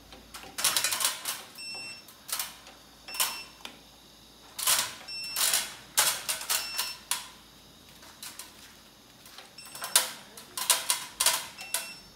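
Front-panel buttons of a Growatt SPF5000ES inverter being pressed in quick clusters, each press a sharp plastic click, several answered by a short high beep as the settings menu is stepped through.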